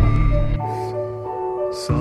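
Music: an instrumental passage of a song with held notes and two brief soft hissing strokes, leading into the vocals.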